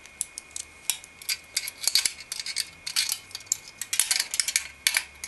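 Irregular metallic clicking and clinking as the Cooler Master TPC 812 tower heatsink, its thin fin stack and heatpipes, is handled and set into place over the CPU socket.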